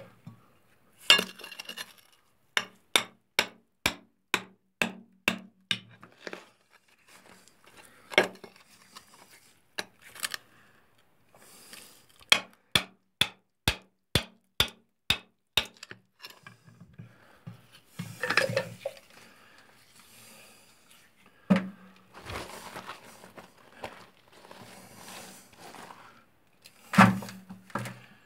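Hand tools chipping at brittle bedrock to break off samples: two runs of sharp metallic clinks, about two to three strikes a second, with bursts of scraping and crumbling rock between them.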